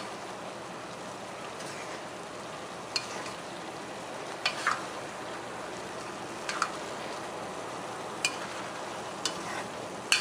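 A spoon stirring a pot of simmering pork menudo stew over a steady sizzle, with a few sharp knocks of the spoon against the pot scattered through.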